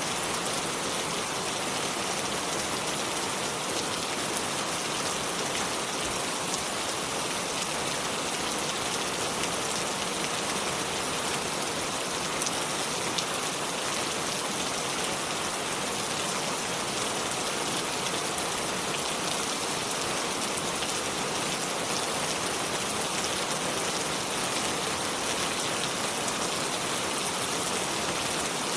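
River water flowing over stones: a steady, even rush with a fine splashing crackle.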